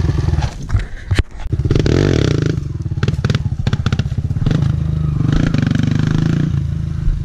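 Kawasaki KLX dirt bike's small single-cylinder four-stroke engine running as the bike rides off along a dirt trail. The engine pitch rises and falls with the throttle, with a sharp knock about a second in and some clattering.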